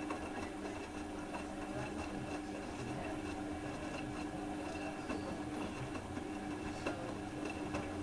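Electrolux Aqualux EW 1006f front-loading washing machine's drum spinning fast during the main wash of a 40° cotton programme, the motor giving a steady hum with a constant tone. The motor cuts off right at the end.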